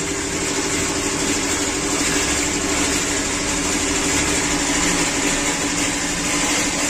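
A steady mechanical drone with an even hiss, constant throughout, of the kind an idling engine or running machinery makes.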